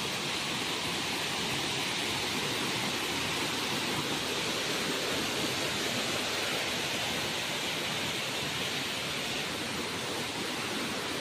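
Steady rush of a rain-swollen waterfall and its cascading stream of muddy floodwater, an even, unbroken noise.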